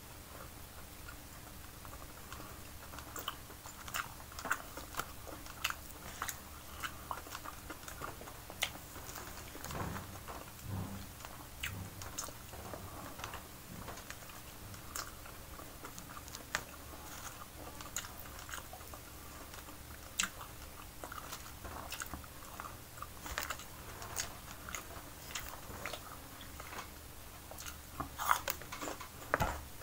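Close-up eating sounds of a person chewing steamed fish: irregular wet mouth clicks and smacks.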